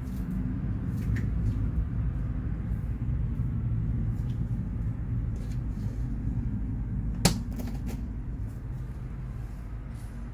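Low steady rumble with a few light clicks and one sharp knock about seven seconds in.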